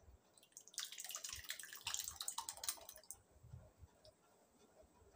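Thick sweet corn soup poured from a pan into a glass bowl, splashing and dribbling for about two seconds, starting about a second in.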